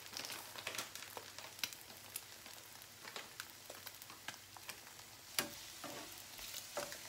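Beef and eggs frying in pans with a faint, steady sizzle, under small clicks and scrapes of a spoon serving rice onto plates. A single sharp click about five seconds in.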